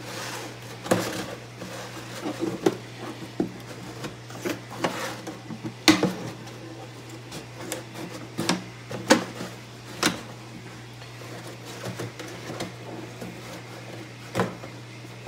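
A 2.5-gallon plastic water jug being cut open by hand: irregular snips, clicks and crackles of stiff, thin plastic, over a steady low hum.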